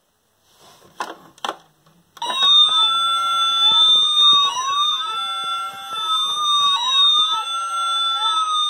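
Electronic siren of a FunRise toy fire truck, sounding through its small speaker with tape over it. A couple of button clicks come first, then about two seconds in a wailing siren starts, its pitch rising and falling about every two seconds over a steady high tone.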